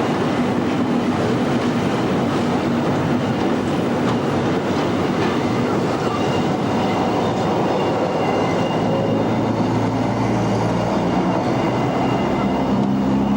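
Train running on the rails with a steady rumble and clatter of wheels. A lower hum builds up over the last few seconds.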